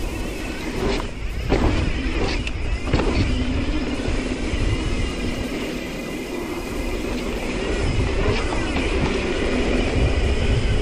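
Mountain bike rolling along a dirt trail: tyres on dirt and the bike rattling, with wind rumbling on the microphone. A few sharp knocks come in the first three seconds.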